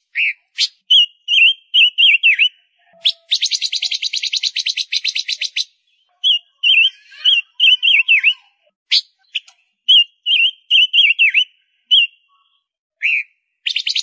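Female silver-eared mesia singing: short sharp chirps and a run of quick notes that hook downward. About three seconds in comes a fast rattling trill lasting over two seconds, and another begins near the end.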